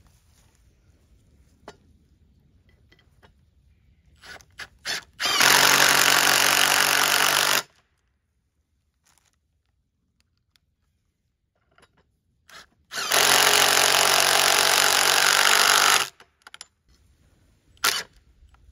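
Cordless impact driver driving lag bolts into a wooden post. It runs in two long stretches of about two and three seconds, each led by a few short trigger blips, with one more short burst near the end.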